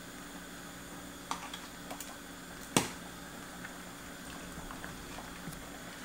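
Metal ladle clinking as stew is ladled from a stainless steel pot into a ceramic bowl: a few light knocks, with one sharp clink about three seconds in. Underneath is a steady simmering hiss from the pot on the lit gas burner.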